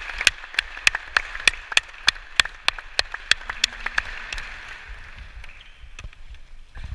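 Hands clapping close to the microphone in a steady rhythm, about three claps a second, stopping about four and a half seconds in.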